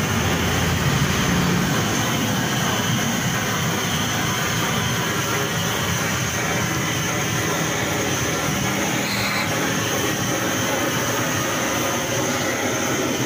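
Handheld gas blowtorch running with a steady rushing hiss as it is played over a slaughtered goat's carcass to singe off the hair.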